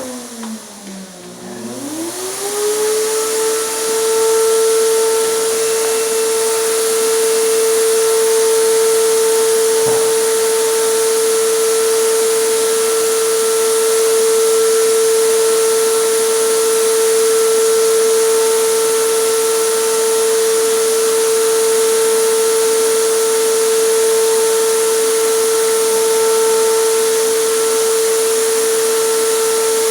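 Electric air compressor's motor running with a steady hum, under the hiss of the acrylic resin being sprayed. Just at the start the motor's pitch sinks and the sound drops, then it speeds back up to its steady note within about two seconds.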